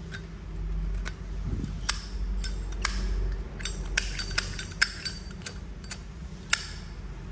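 Small sharp metallic clicks and clinks, scattered and irregular, from a brass Zippo lighter being handled and turned over, with a steady low hum underneath.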